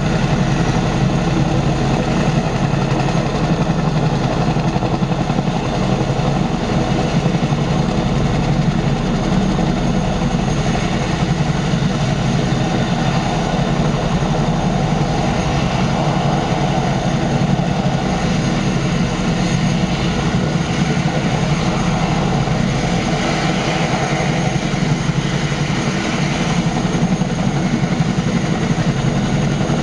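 Boeing Chinook HC4 tandem-rotor helicopters running on the ground with rotors turning: a loud, steady, rapid rotor beat mixed with the whine of their T55 turboshaft engines.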